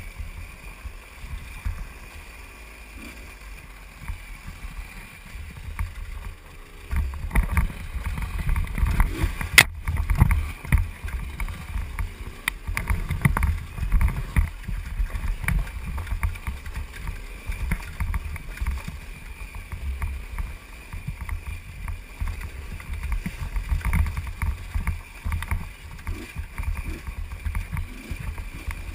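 Husqvarna WRE125 two-stroke enduro bike ridden along a dirt trail, its engine heard muffled under heavy wind buffeting on a helmet-mounted GoPro. It gets louder and rougher about seven seconds in, with a single sharp knock about ten seconds in.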